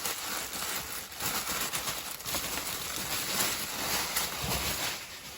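Packing paper rustling and crinkling as it is handled and pulled apart, a steady run of small irregular crackles.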